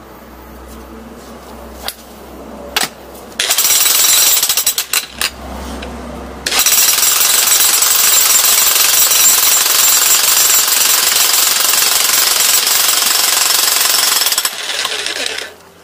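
Steinhaus PRO DH1700 electric demolition hammer chiselling into a stone boulder: a few short bursts starting about three seconds in, then a long steady run of rapid hammering that eases off and stops near the end.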